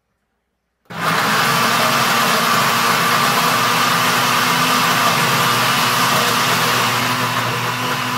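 Mondial Turbo Chef 1000 W countertop blender switched on about a second in and running steadily at full power, whipping egg, cream, bacon and vegetables into a thick mayonnaise-style sauce; its whir eases slightly near the end as the mix turns smooth.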